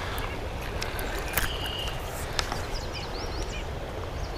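Shallow river riffle running steadily, with a couple of sharp clicks and a few short, high bird chirps in the last second or so.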